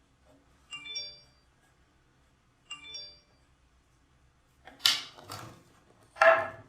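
An electronic chime of several bright tones sounds twice, about two seconds apart, followed by three short noisy bursts, the last the loudest.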